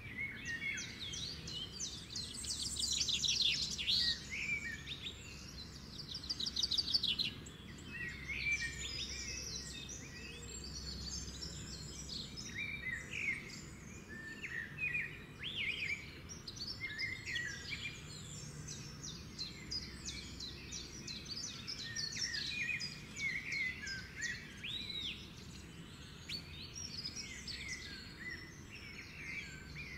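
Birds chirping and singing: fast trills in the first several seconds, then many scattered short chirps and whistles, over a faint steady low rumble.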